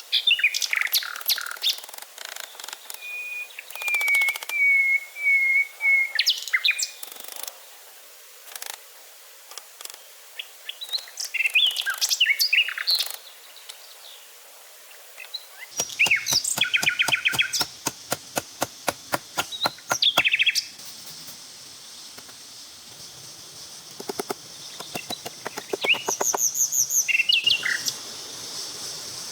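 Several wild birds chirping and calling, with short, quick, high-pitched notes and one warbling call held for a few seconds. A fast run of sharp clicks comes about halfway through.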